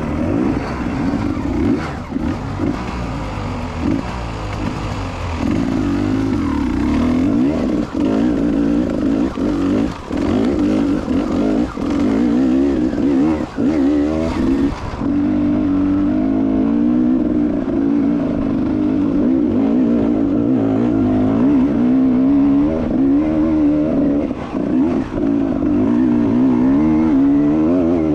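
Enduro dirt bike engine revving up and down as the throttle is opened and closed while riding, with frequent short knocks.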